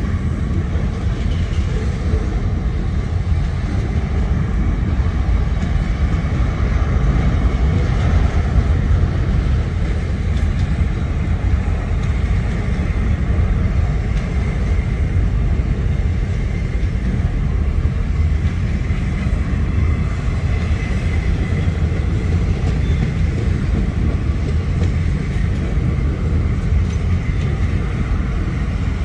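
Freight hopper wagons of a long train rolling past close by: a loud, steady rumble of steel wheels on the rails.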